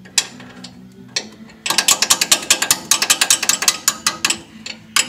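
Hand ratchet clicking as a nut on a newly fitted front shock absorber is run down. A few single clicks come first, then a fast, even run of clicks starts about a second and a half in and stops shortly before the end.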